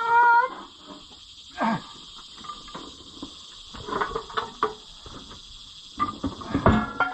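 Scattered knocks and clanks of heavy steel tractor wheel parts being handled and shifted on a jack, with a short squeak at the start. Steady insect chirring underneath.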